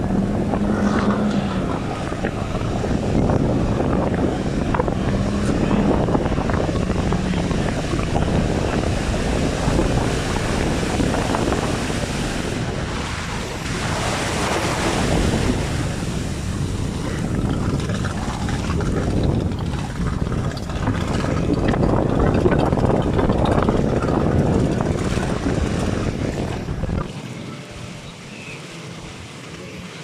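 Wind buffeting the microphone over the wash of sea surf, with the drone of a racing inflatable powerboat's outboard engine, clearest in the first couple of seconds. The wind noise drops off sharply near the end.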